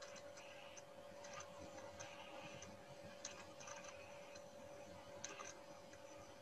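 Near silence: room tone with a faint steady hum and a few faint scattered clicks.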